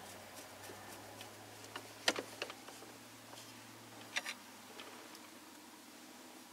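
Scattered light clicks and ticks of a screwdriver and small screws against the parts of a Ford F-150 steering column as the screws are put back in. The sharpest click comes about two seconds in, and a quick pair comes about four seconds in.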